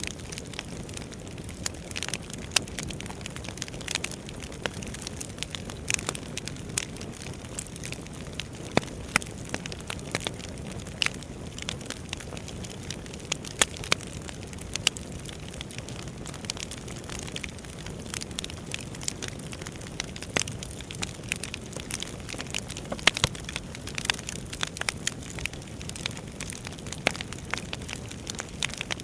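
Wood fire burning steadily with a low rumble and frequent sharp, irregular crackles and pops.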